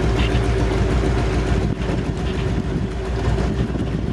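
Small boat's outboard motor running at a steady speed under way, heard from on board.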